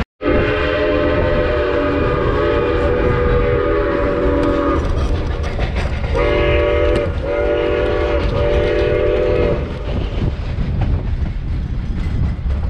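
Steam locomotive's chime whistle sounding one long blast, then three shorter ones about a second apart, heard from a passenger car of the moving train. Under it the train runs with a steady rumble and wheel clatter.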